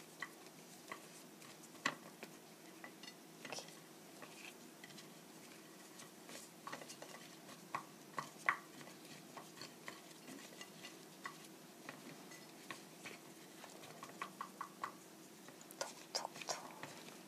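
Halved green chili peppers being coated in flour by hand on a ceramic plate: soft scattered taps and clicks of the peppers and fingers against the plate, over a faint steady hum. Near the end comes a quick run of light taps as the excess flour is tapped off.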